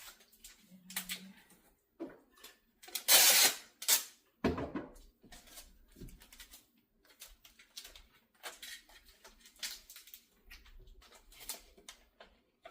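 Handling noises as a furnace filter is fitted to a box fan: scattered rustles and light knocks, with one loud rasping noise about a second long around three seconds in and a shorter one just after.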